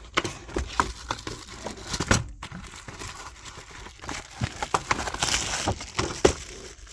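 Irregular crinkling and crackling with scattered clicks and taps, from a car cabin air filter being handled, with a denser patch of crackling about five seconds in.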